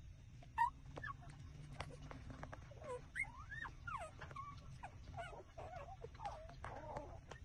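Newborn puppies, about six days old, squeaking and whimpering while they nurse. A string of short, wavering squeaks comes mostly in the second half, over small sucking clicks.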